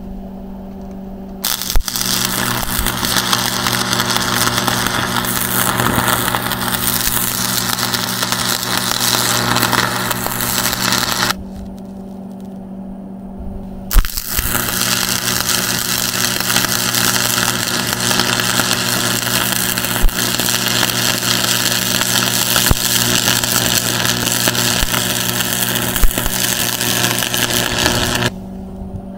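Stick welder arc crackling as electrodes are burned in two welding runs. The first arc is struck about a second and a half in and stops about eleven seconds in. The second is struck about three seconds later and runs until just before the end. A steady low hum carries on through the pauses.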